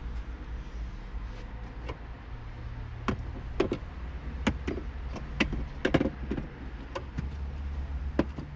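Hand tools clicking and knocking against a bolt and the surrounding panels, faint at first, then frequent, irregular strikes from about three seconds in, while a hard-to-reach bolt is felt for out of sight. A steady low hum runs underneath.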